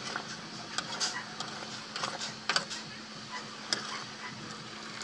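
A ladle stirring sugar syrup in a metal wok, scraping and clinking against the pan in scattered, irregular knocks, over a steady low hum.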